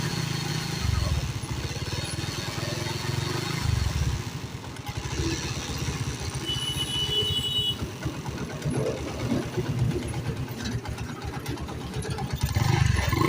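Honda CD70's air-cooled single-cylinder four-stroke engine running at idle, swelling briefly a few times as the throttle is blipped.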